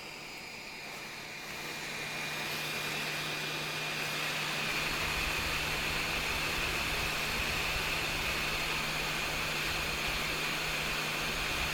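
Hot-air rework station blowing: a steady rushing hiss with a thin whine that swells over the first few seconds as the airflow comes up, then holds steady.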